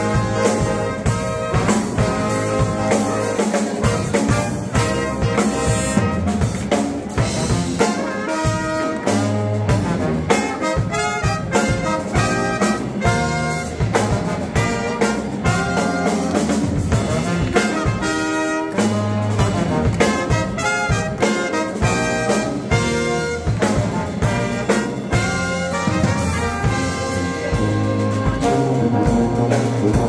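Live brass band playing: trumpets, trombones and a sousaphone over a drum kit, with a steady drum beat.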